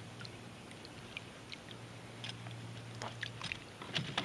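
Faint small splashes and crackling water ticks from a hooked catfish thrashing at the surface beside a canoe, with a low hum that drops out and comes back about two seconds in.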